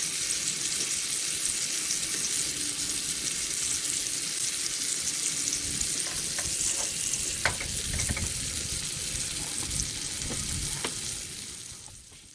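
Steak searing on the heat, a steady crackling sizzle with a few small ticks and pops partway through, fading away near the end.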